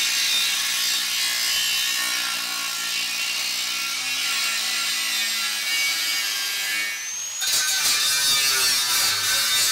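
Angle grinder with a cutoff disc cutting through the stainless steel top of a beer keg, a steady high grinding of disc on metal. It breaks off briefly about seven seconds in, then starts again with a short rising whine.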